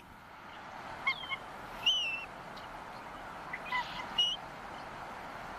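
Bald eagle calling: a handful of short, high-pitched, squeaky calls that slide in pitch, the loudest about two seconds in, over a steady hiss.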